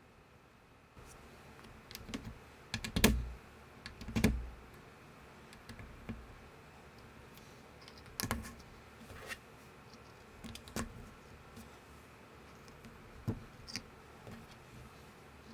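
LEGO-compatible plastic bricks being handled and pressed together: scattered clicks and taps, starting about a second in. The loudest are two heavier knocks about three and four seconds in.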